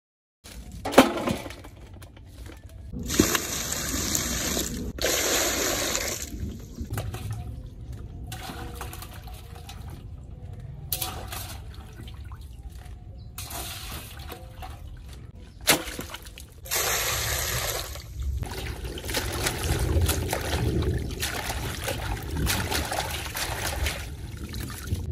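Water sloshing and splashing in a large aluminium basin as vegetables are washed in it by hand, with louder rushes of water a few seconds in and again about two-thirds of the way through, and a couple of sharp knocks.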